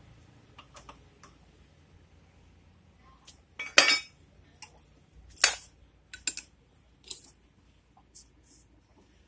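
Metal hand tools clinking and knocking, about ten separate clinks, the two loudest about four and five and a half seconds in.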